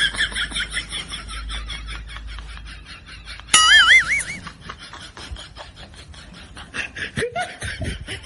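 A montage of comic sound effects: rapid, high-pitched cartoonish laughter and snickering, cut about three and a half seconds in by a loud, wobbling warble that lasts about half a second.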